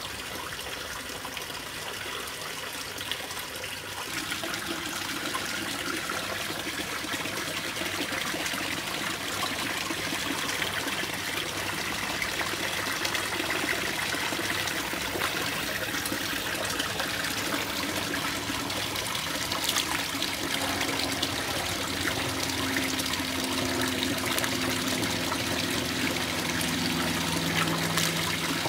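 Water from a filter return splashing and trickling steadily into a fish pond, growing louder over the first few seconds.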